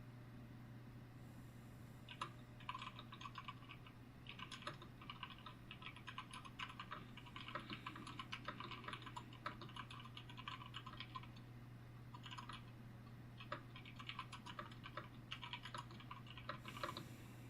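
Typing on a computer keyboard in quick runs of keystrokes with short pauses, starting about two seconds in. A steady low hum runs underneath.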